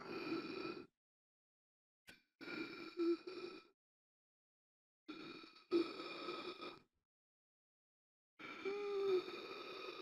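A person gasping for air: a series of loud, breathy gasps about every two to three seconds, separated by dead silence, the last one carrying a brief voiced groan.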